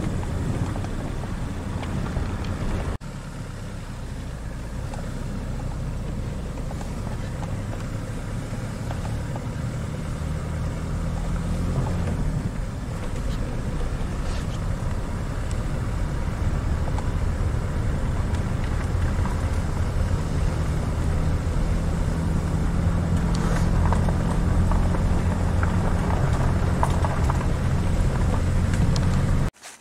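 Car engine and road noise heard from inside a moving car, a steady low hum over rushing noise. It cuts off abruptly about three seconds in and resumes, slowly getting louder, then stops suddenly near the end.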